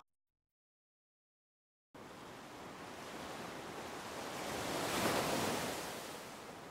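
Sea waves surging against rocks. After about two seconds of silence, a rush of surf swells to a peak and then fades away.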